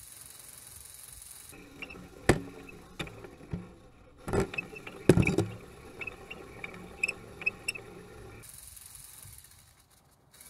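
Inside a cave, an action camera hanging on a crane line picks up a few loud knocks and scrapes with lighter sharp ticks between them, as it bumps against rock. Before and after, a steady outdoor hiss.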